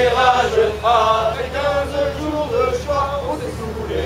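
A group of men's voices singing or chanting together in unison, in short held phrases.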